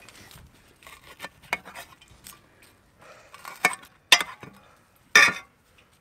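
A metal tool clinking and scraping on an enamel plate while a deep-fried battered onion ring is cut: a handful of separate sharp clicks, the loudest near the end.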